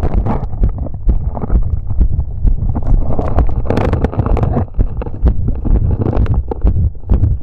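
Heartbeat after exercise, picked up through a chest piece pressed hard against the chest wall: repeated low thuds mixed with rubbing and knocking handling noise from the pressed pickup.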